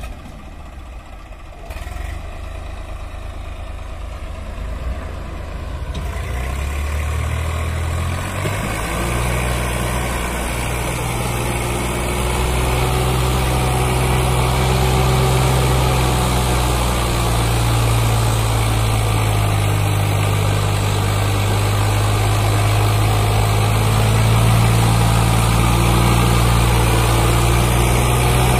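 Diesel tractor engine pulling hard under the heavy load of a full sand trolley, enough to lift its front wheels. It is quieter at first, grows louder from about six seconds in, then holds a steady low drone.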